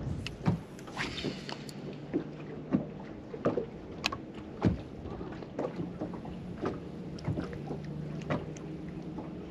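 Small waves slapping against the boat's hull in irregular sharp knocks, over a steady low hum.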